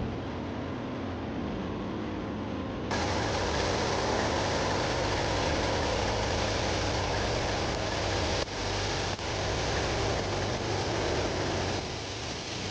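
CNC lathe running: a steady machine noise that gets louder and fuller about three seconds in, with two brief dropouts past the middle, and falls back down near the end.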